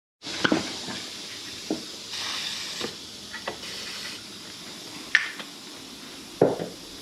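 A series of light knocks and clicks from parts being handled and fitted during reassembly in a car's engine bay, over a steady hiss. The loudest are a sharp click about five seconds in and a duller knock about a second later.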